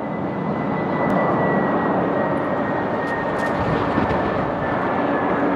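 Boeing 747-400 freighter on final approach, its four jet engines running with a steady rushing noise and a thin high whine that slowly drops in pitch.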